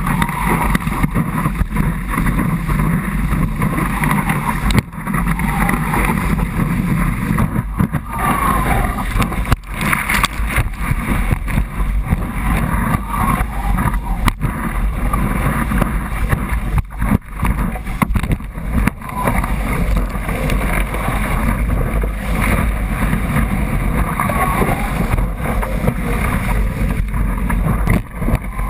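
The tidal bore's whitewater rushes and churns without a break, heard loud and close from a GoPro beside the breaking wave face. A heavy low rumble of wind buffets the microphone.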